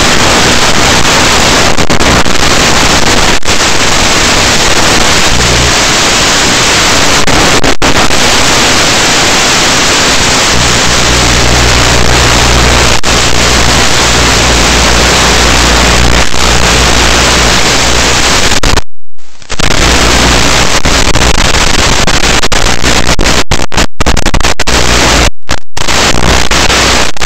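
Loud, steady static hiss from the EV800D goggles' analog video receiver, its audio channel carrying no sound from the drone. A low hum joins about ten seconds in, and the hiss cuts out briefly about two-thirds of the way through and a few more times near the end.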